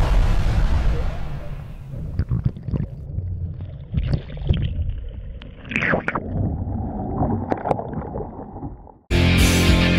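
Muffled gurgling and rushing of water, with scattered knocks and splashes, heard through a camera that is under the water alongside a Laser dinghy at speed. About nine seconds in, the water sound drops out and rock music with electric guitar starts.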